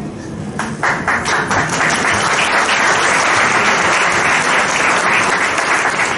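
A room full of people applauding. The clapping starts about a second in and holds steady.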